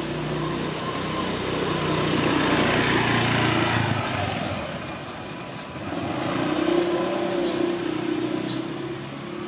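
Motor vehicle engines passing: a low hum that swells about two to four seconds in, fades, and swells again around seven seconds.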